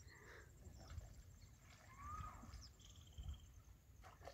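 Near silence of open countryside with a few faint, distant bird calls, among them one short arched whistle about halfway through and a brief higher note soon after.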